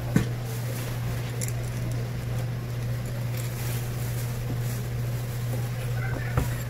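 Fish being filleted on a cutting board: a sharp knock just after the start and another near the end, over a steady low hum.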